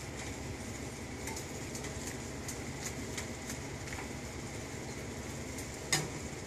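Pot of water at a rolling boil on the stove, a steady bubbling rumble, with a few light clicks and a sharper knock about six seconds in.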